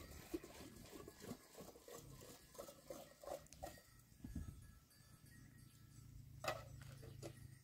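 Faint, scattered light knocks and clatter as plastic water jerrycans and a metal kettle are moved and set down, with one sharper knock about six and a half seconds in.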